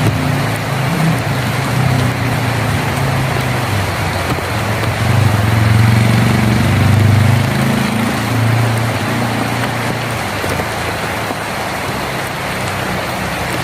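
Heavy rain drumming steadily on a tin roof, with a low rumble underneath that swells about five seconds in and fades again toward the end.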